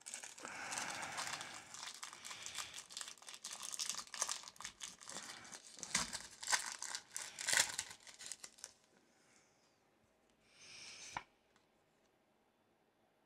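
Foil Pokémon booster pack wrapper crinkling and tearing as it is opened by hand: a dense run of crackles for about nine seconds, then a short rustle a couple of seconds later.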